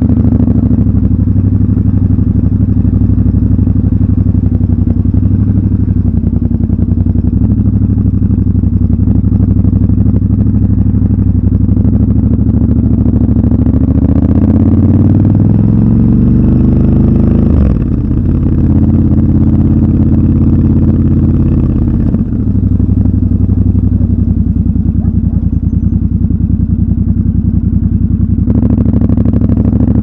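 Triumph Scrambler 1200 XC's 1200 cc parallel-twin engine running under way at low speed. About halfway through it revs up with a rising pitch, then drops suddenly, and its pitch drops again a few seconds later.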